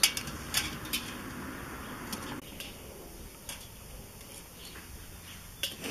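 A few sharp clicks and knocks, with a soft rushing noise through the first two seconds or so.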